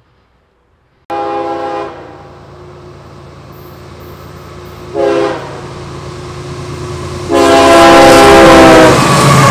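Train air horn sounding three times: a blast about a second in, a short blast about five seconds in, then a long, loud blast near the end, over the growing rumble of the approaching train.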